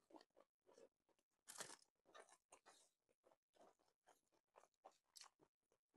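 Faint, close-miked chewing of food: a string of small crunchy clicks and wet mouth sounds, with fingers mixing cooked rice on a plate.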